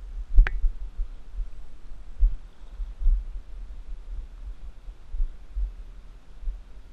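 Low, uneven rumbling thumps of buffeting on the microphone of a camera worn while wading in a river, with one sharp click about half a second in.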